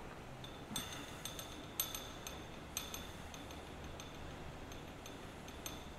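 Light metallic clicks and clinks, about a dozen spread irregularly, each ringing briefly: metal parts of a dial indicator and its stand being handled while the gauge is set to zero against the tool shank.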